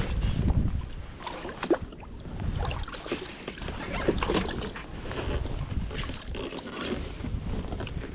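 Wind buffeting the microphone on a sea kayak, with water sounds and a few short knocks, the strongest rumble in the first second.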